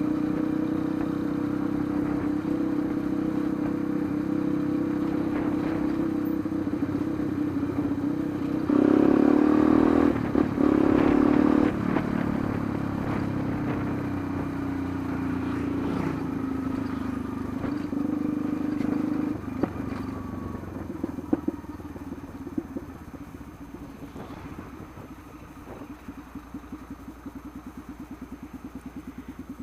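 Yamaha Lander 250's single-cylinder four-stroke engine heard from on board while riding in traffic. It runs at a steady note, gets louder with more throttle about nine to twelve seconds in, then drops in pitch as the bike slows. From about twenty seconds in it runs quieter and slower, near idle.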